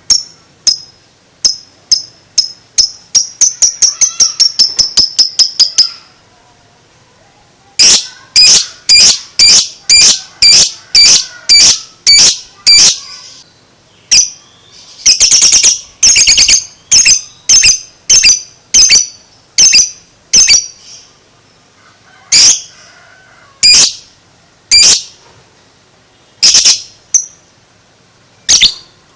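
Lovebird giving its ngekek call: a series of sharp, shrill chirps that speeds into a rapid run about two to six seconds in, then comes again in repeated runs of about two calls a second, broken by short pauses.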